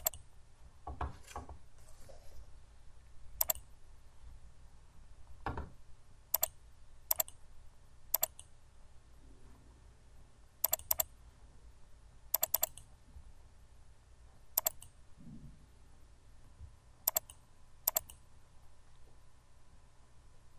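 Computer mouse button clicks, single and in quick double-click pairs, spaced a second or more apart, with a couple of soft low thumps early on.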